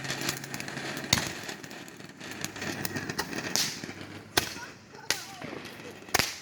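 Fireworks going off: four sharp bangs spread over a few seconds, with smaller pops between them.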